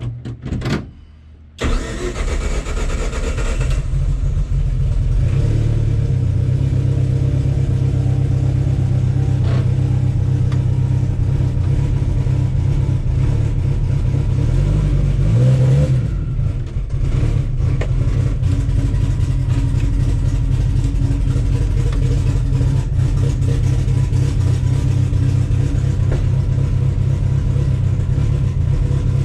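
Turbocharged Mitsubishi 4G63 four-cylinder engine catching about a second and a half in, then running loud and steady at idle, with a brief rev around halfway through.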